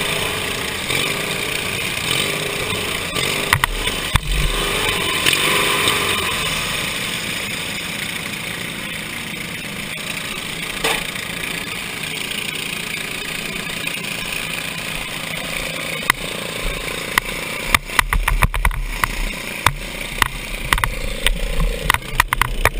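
A derby lawn mower's small engine running, heard through the helmet-style action camera mounted on the machine, with voices in the background. From about 17 seconds in come a rapid series of sharp knocks and low rumbling buffets as the mower jolts over the dirt track.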